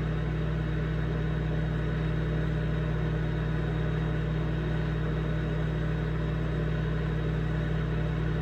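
Microwave oven running with a steady, unbroken hum while heating eggs in a container of water.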